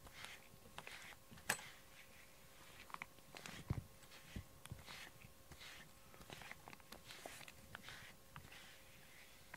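A brush stroked repeatedly through a cat's short coat: faint, soft brushing swishes about every half second, with a sharp click about one and a half seconds in and a dull thump near four seconds.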